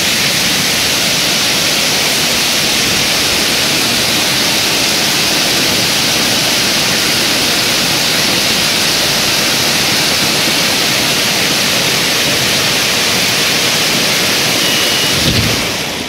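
Dairy yard flood wash system releasing water: jets gushing out of a row of outlets onto the concrete yard make a loud, steady rush. Near the end the flow cuts off with a short low thump, and the rush drops away to water running across the concrete.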